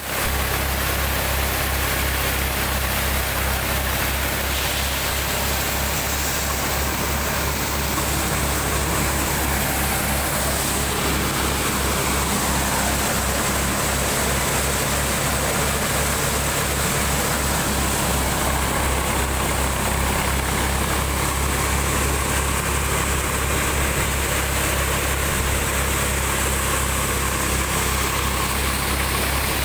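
Punni 4302 thresher running off a tractor's PTO while it threshes soybeans: a steady, loud mechanical din with a low throbbing rumble from the tractor engine and drive, and a dense hiss from the threshing drum and blower.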